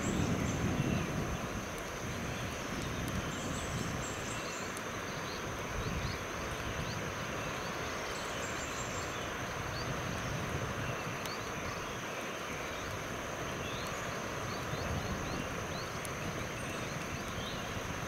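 Forest ambience: a steady high-pitched drone throughout, with short faint chirps scattered through it, over a low rumble like wind on the microphone.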